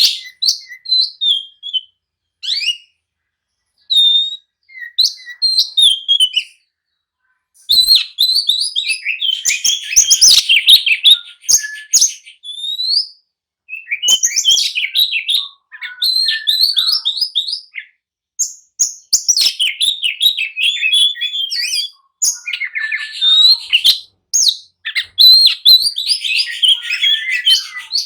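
Oriental magpie-robin (kacer) in full, agitated song: loud, varied whistled notes and fast chattering phrases in bursts, with short pauses between them.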